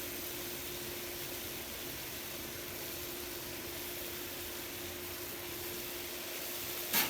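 Mutton and masala frying in a pressure cooker pan: a steady, even sizzling hiss with a faint steady hum under it, and a short click near the end.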